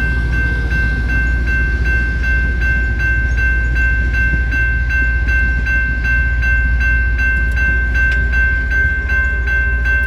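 Loram rail grinder train rolling past: a loud, steady deep rumble under a sustained high whine, with a faint beat about three times a second.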